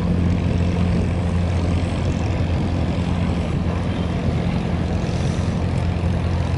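Boat engine running steadily, a low, even drone with no change in pitch or loudness.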